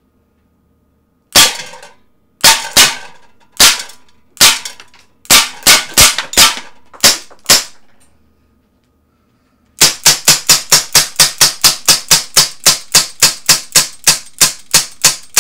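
Umarex Smith & Wesson 586 CO2 pellet revolver with a 6-inch barrel firing at a tin can: about a dozen sharp cracks at an uneven pace, then after a short pause a fast, even run of about four cracks a second.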